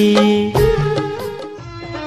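Instrumental break in a devotional folk song for the goddess Durga's immersion. Held notes end about half a second in, then a light, regular beat of percussion strikes continues while the music grows quieter toward the end.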